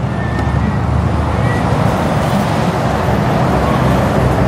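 Scania truck pulling a trailer drives past, with a steady engine drone and tyre noise that grows slightly louder as it comes close.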